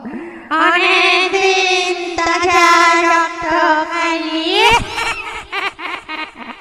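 Eerie high wailing voice, a ghost sound effect: a long wavering note that glides upward about four and a half seconds in, then breaks into short stuttering cries near the end.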